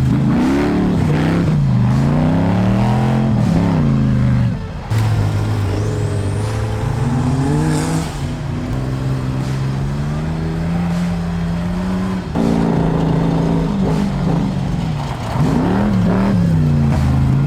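Polaris RZR side-by-side's engine revving while it drives, its pitch climbing and falling again and again with the throttle, broken by a couple of sudden cuts.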